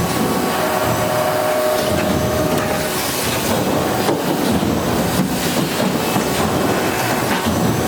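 Refrigerator-door production line running: a steady mechanical din of conveyors and machinery, with rattles and scattered knocks, and a faint whine for about a second near the start.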